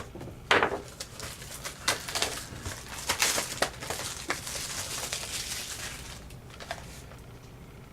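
Trading card packaging being crinkled and torn open by hand, plastic wrap and cardboard rustling in irregular bursts with small clicks, dying away after about six seconds.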